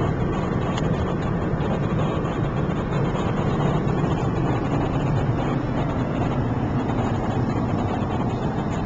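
Steady road and wind noise inside a car cruising on the highway at about 75 mph: an even, low rumble of tyres and engine with a hiss of wind over it.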